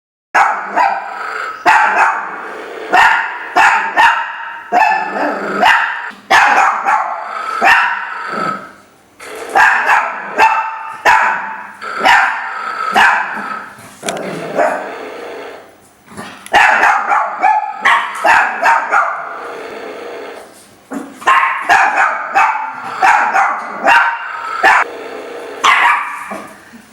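Chihuahua barking and growling, loud barks coming in repeated runs with short pauses between.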